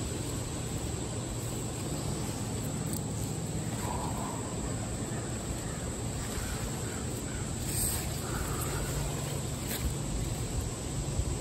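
Steady outdoor background: an even, high-pitched insect drone over a low rumble, with a few faint bird-like chirps in the middle.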